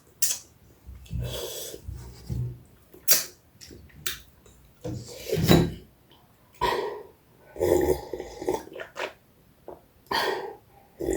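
A person eating close to the microphone: irregular short mouth sounds of chewing, smacking and swallowing, about one every second, some with a low voiced grunt.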